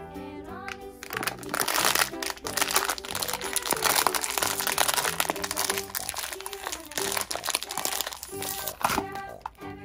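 Metallic foil blind bag crinkling and crackling as hands handle it and pull it open, over background music.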